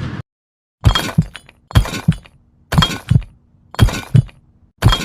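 Heartbeat sound effect: five double thumps, about one a second, each with a sharp crackling edge, beginning just under a second in after a moment of silence. A faint steady hum joins from about a second and a half in.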